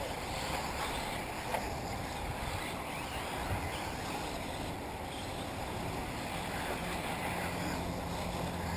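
Electric 1/8-scale RC buggies running on an off-road track, heard as a steady rushing noise with a few light knocks. A low steady hum comes in about two-thirds of the way through.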